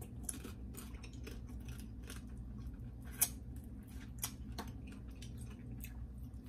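Blue crab shells cracking and crunching while being eaten: a run of irregular short, sharp clicks and snaps, one louder crack about three seconds in, over a steady low hum.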